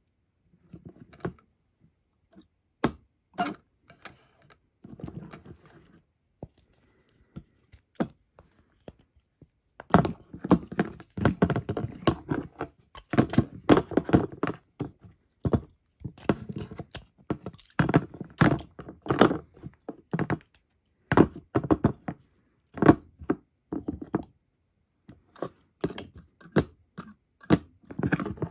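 Handmade toy moth figures knocked and rubbed against each other and the tabletop by hand: irregular thunks and scraping, sparse at first and much busier from about ten seconds in.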